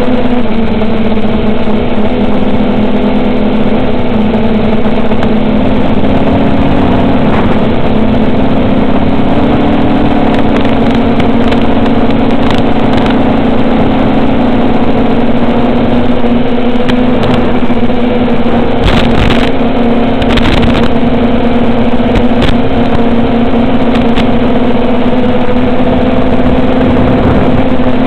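The motors and two-bladed 7-inch propellers of an FPV quadcopter (Avenger V2 2508 1750kv motors) drone steadily in flight. The pitch drifts slightly up and down with throttle, and a few brief bursts of noise come about two-thirds of the way through.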